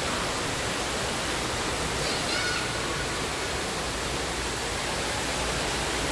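Steady rushing of an indoor waterfall, with a faint short high chirp about two seconds in.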